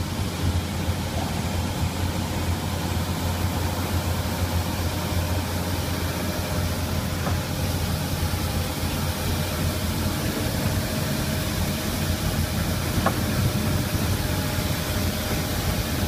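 Mung bean peeling machine running: a steady low hum with an even rushing hiss over it.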